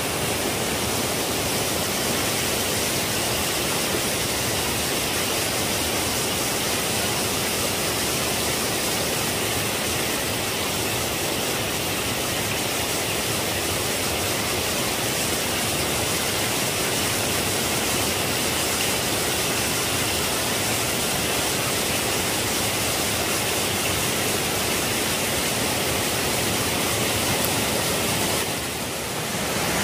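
Steady rushing of a small waterfall cascading down a rocky stream, dipping briefly near the end.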